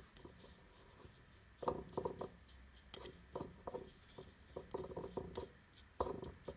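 Fingertips mixing a gritty face-scrub powder with milk in a small bowl: short scratchy rubbing strokes of the grains against the bowl, coming in several bursts.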